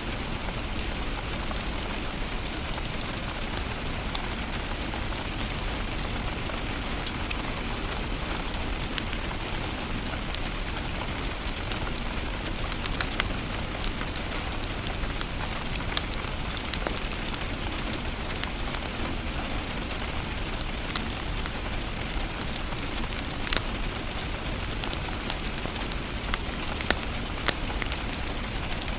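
Wood fire burning in a fireplace: a steady hiss with many sharp crackles and pops at irregular moments.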